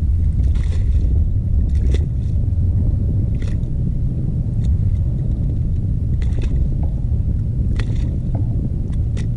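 Steady low rumble throughout, with a few faint clicks and knocks scattered through it.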